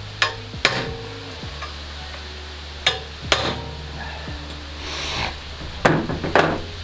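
Hand tools knocking and clinking on metal fender-mounting hardware: three pairs of sharp knocks, each pair about half a second apart.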